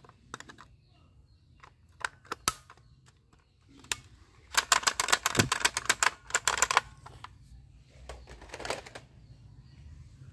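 Rapid clicking and rattling of a plastic toy gun being handled: scattered clicks at first, a dense run of quick clicks from about four and a half to seven seconds in, and a shorter run near the end.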